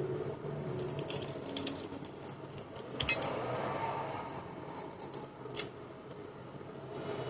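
Kitchen utensils clinking and knocking: a few scattered sharp clicks and taps over a steady low hum.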